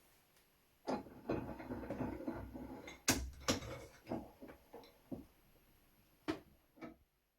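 Workbench handling of the shotgun and tools: irregular clicks, knocks and rubbing, the sharpest click about three seconds in, with a few separate knocks near the end before the sound cuts off.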